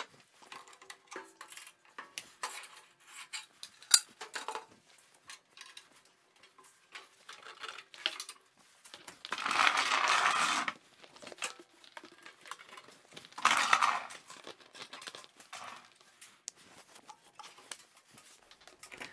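Clicks, clanks and knocks of the metal parts of a Charnwood 10x7 planer thicknesser being handled as its jointer tables are lifted and its chip hood and dust hose are swung into place for thicknessing. There are two longer scraping noises, the first about ten seconds in and the second, shorter one, about four seconds later.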